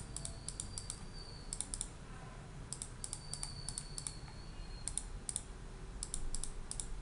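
Computer mouse clicking again and again, the clicks often in quick pairs, as beams are placed node to node on the drawing grid. A faint high whine comes and goes twice over a low steady hum.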